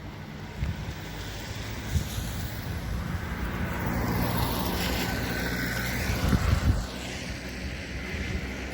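A motor vehicle passing: engine hum and tyre noise growing louder over the first six seconds, then dropping away about seven seconds in.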